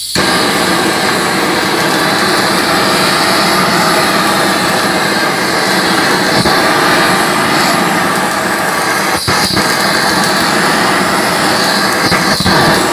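Handheld gas torch running with a steady hissing flame, searing the skin of a beltfish fillet until the fat seeps out. The hiss briefly dips twice in the second half.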